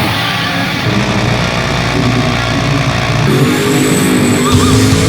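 A car engine running loudly, with an abrupt change in the sound a little over three seconds in.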